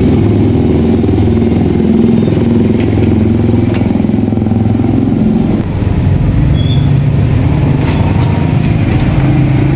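Motorcycle engine running steadily, settling to a slightly lower pitch about five and a half seconds in.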